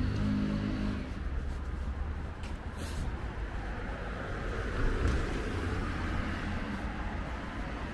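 Street traffic: motor vehicle engines running and passing, with a steady low hum. An engine's pitched drone fades about a second in, and a short hiss comes about three seconds in.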